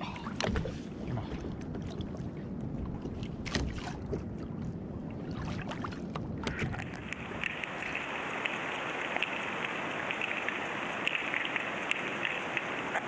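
Wind and water noise on the microphone of a camera mounted on a fishing kayak at sea, with scattered light clicks. About six and a half seconds in, the sound switches abruptly to a steady hiss, the audio of an underwater fishing camera.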